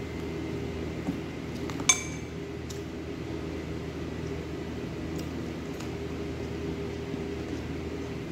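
A metal eating utensil clinks sharply once against a dish with a short ring about two seconds in, among a few softer scrapes and taps of eating. A steady low hum runs underneath.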